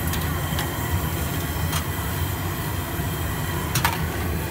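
Steady low rumble of a street-food stall's surroundings, with a few sharp clinks of steel utensils and plates, two close together near the end.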